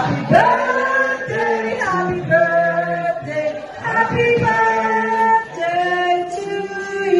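A group of voices singing together in long held notes.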